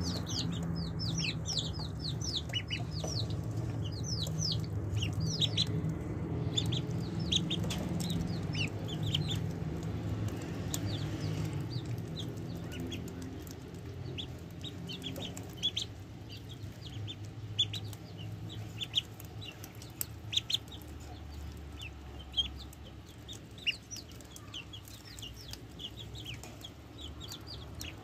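Ducklings peeping: many short, high, falling peeps, thickest in the first half and thinning later, with a few sharp taps in the second half.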